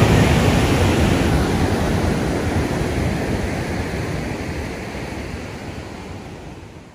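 Ocean surf breaking along the beach, a steady rushing wash of waves that fades out gradually and is gone at the very end.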